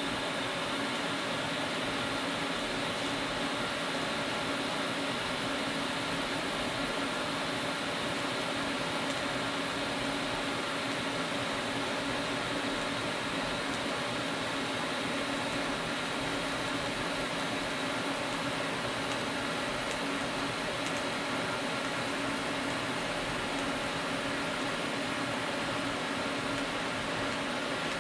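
TIG welding arc running steadily as a butt weld is laid with hand-fed filler rod, a continuous even hiss. The weld is run a little cold, on low heat.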